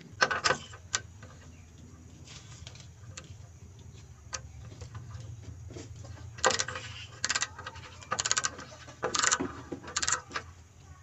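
Ingco ratchet screwdriver with a socket bit ratcheting on a number-plate bolt: short bursts of rapid clicks, about one burst a second in the second half, with a few single clicks near the start. A low steady hum runs underneath.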